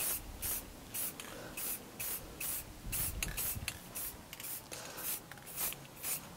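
Aerosol can of black enamel engine paint spraying in short hissing bursts, two or three a second.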